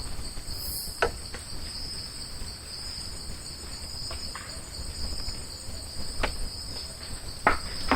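A steady night chorus of insects, a continuous high shrill held on two pitches, with a few faint short clicks scattered through it.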